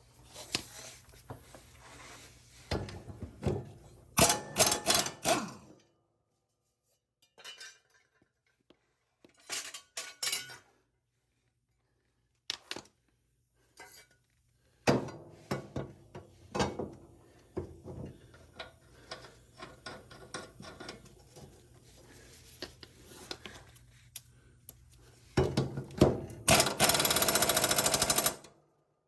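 Cordless impact wrench with a 24 mm socket, run in reverse in short bursts of rapid hammering to loosen the blade bolts on a zero-turn mower deck; the longest and loudest burst comes near the end. Metal knocks and clanks of the socket and blade come in between.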